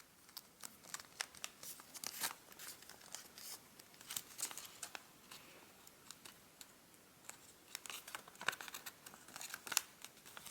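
Origami paper crinkling and crackling in the hands as the model is folded in half and its creases pressed down, with irregular bursts of small snaps.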